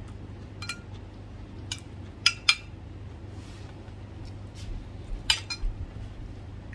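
A metal spoon clinking against a glass food container as food is scooped out: a few sharp clinks, the loudest a quick pair about two and a half seconds in and another about five seconds in, over a low steady hum.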